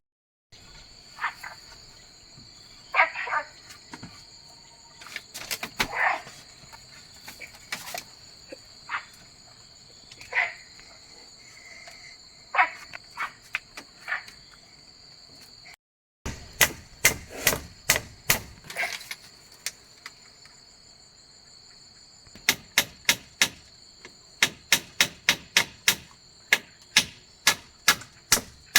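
Insects chirring steadily in the background, with scattered sharp knocks. In the last third comes a quick, regular run of sharp tool strikes, about three a second, like chopping or hammering.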